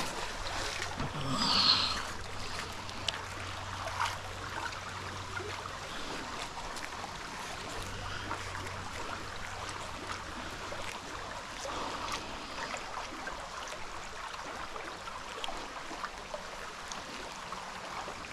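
Shallow stream flowing over a stony bed, a steady rippling wash, with a brief louder noise about a second and a half in.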